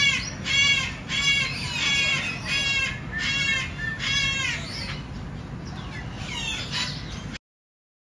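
Blue-fronted Amazon parrot calling: a quick series of about seven loud calls, each rising then falling in pitch, followed by a few softer calls, and the sound cuts off suddenly near the end.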